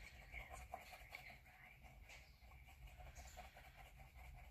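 Faint scratching of a red crayon colouring in on paper, in short irregular strokes.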